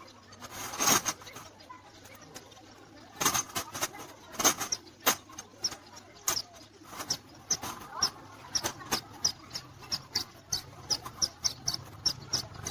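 Small birds chirping: short high chirps repeated over and over, coming about two to three a second in the second half. Several sharp knocks or clatters sound in the first half.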